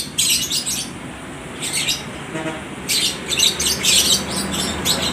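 Several lovebirds chattering back and forth in rapid, shrill bouts, the longest filling most of the second half.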